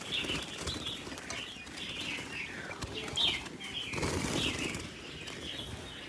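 Caged red-whiskered bulbuls fluttering and flapping their wings against wire mesh, with many short chirps and calls scattered throughout; the rustling grows heavier about four seconds in.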